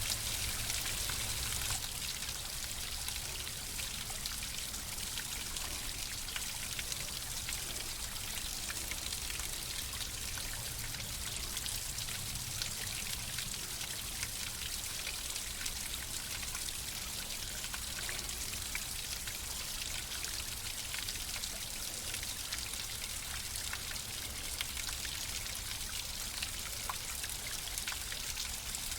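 Water flowing and trickling steadily, a constant splashy hiss with many small drip-like clicks.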